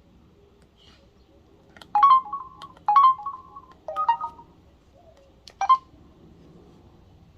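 Samsung Sunburst (SGH-A697) cell phone ringtone: a short electronic melody of four brief note groups about a second apart, the last a single short note.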